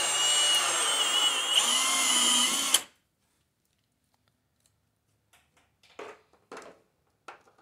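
Cordless drill with a step bit running at speed while drilling a hole, its high whine wavering in pitch, then stopping abruptly about three seconds in. Faint clicks and knocks of handling follow.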